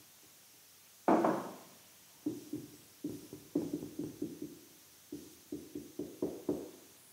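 Marker pen squeaking on a whiteboard in a quick run of short strokes as letters are written. Before the writing, about a second in, there is one sharp knock.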